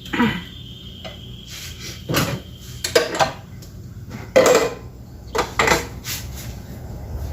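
Kitchen clatter: about six separate knocks and clinks of hard objects such as dishes or utensils being handled, spread irregularly over a few seconds.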